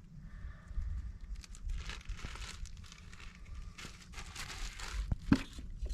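Crinkling and tearing of fire-starter packaging being handled and opened by hand, with irregular rustles and one sharp snap about five seconds in.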